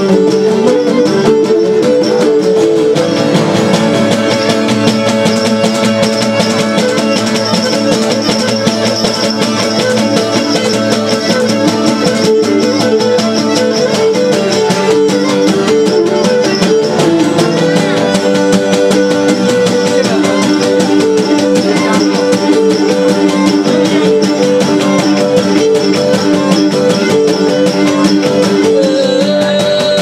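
Traditional Cretan music played as an instrumental passage: a bowed Cretan lyra carries the melody over two Cretan laouta (long-necked lutes) strumming and plucking the accompaniment, with no singing.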